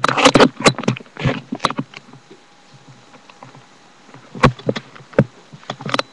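Rustling and irregular knocks of handling, then a quiet stretch in the middle. Several sharp knocks follow from about four and a half seconds in, as a folded exercise mat is pulled out and moved.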